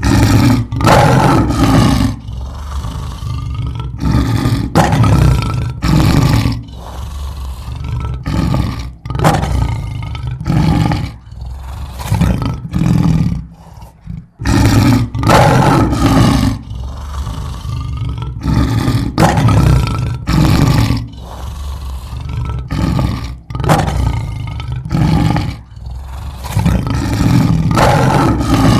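Lion roaring: a run of loud, rough roars and grunts, each about a second long, coming every one to two seconds, with a quieter rumble between them.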